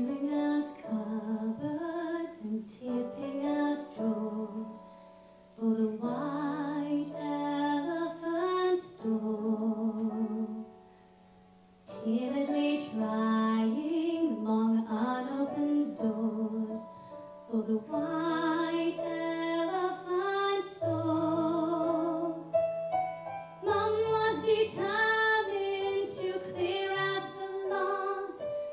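Solo female voice singing a musical-theatre song into a microphone over piano accompaniment, in phrases with short breaks between them.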